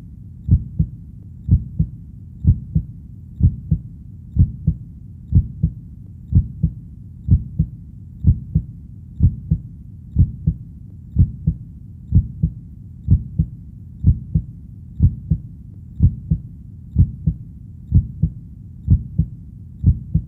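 Heartbeat sound: steady paired lub-dub beats, about one pair a second (roughly 60 beats a minute), over a faint low background rumble.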